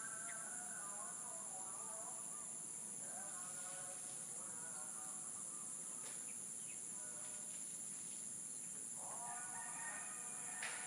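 Steady high-pitched insect chorus, with fainter lower calls coming and going and a sharp click near the end.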